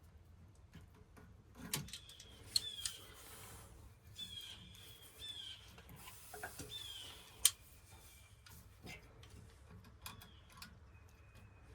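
Scattered light clicks and knocks of hand tools and metal parts being handled, one sharp tick standing out about halfway through. Several short high chirps that fall in pitch come in among them.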